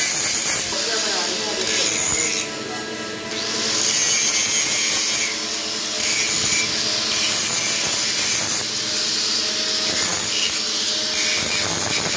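Electric angle grinder grinding metal on a steel gearbox housing: the disc bites with a harsh, hissing grind over a steady motor whine. The grind lightens for about a second, two and a half seconds in, then bears down again.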